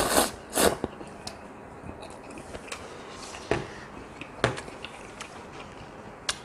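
A person slurping ramen noodles in several loud pulls during the first second, then chewing with scattered smacking clicks.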